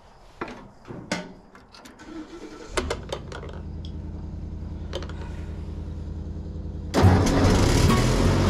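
1948 Ford 8N tractor's four-cylinder flathead engine being started: a few clicks and knocks at the controls, then the engine turning over and running steadily from about three seconds in, getting much louder at about seven seconds.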